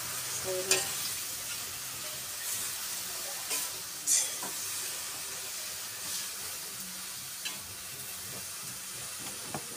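Fresh greens sizzling in a large wok over a wood fire: a steady hiss, broken by a few short clatters, the loudest about four seconds in.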